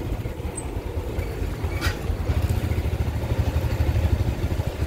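Motorcycle engine running at low speed while riding, heard as a steady low rumble with wind buffeting the microphone. There is a light click about two seconds in.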